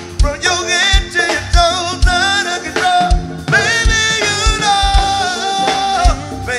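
Live go-go band music: a singer holds and bends long notes over drums and the band.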